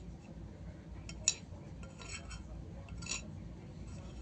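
Spoon clinking and scraping on a plate of fried rice: a handful of short, sharp clinks, the loudest just over a second in, over a low steady hum.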